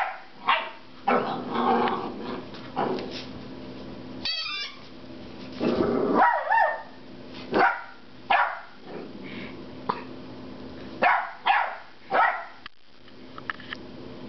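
A 10-week-old puppy barking over and over in frustration at a rubber squeaky pig toy: a string of short, sharp barks with a longer, growling bark about six seconds in.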